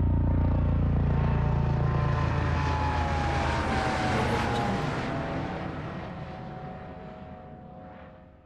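Helicopter passing by. It starts loud with a heavy low rotor chop, peaks with a bright engine and rotor wash noise, then fades away with a slightly falling engine pitch as it moves off, dying out near the end.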